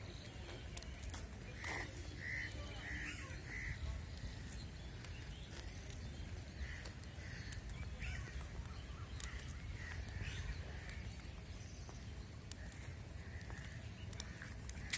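Birds calling: a run of four short calls about half a second apart near two seconds in, then more scattered calls through the rest, over a steady low rumble.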